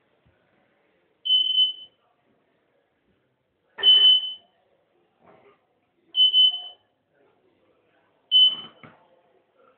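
Four short, high-pitched electronic beeps, each about half a second long, coming roughly every two to two and a half seconds. The second and last beeps come with a brief burst of duller noise.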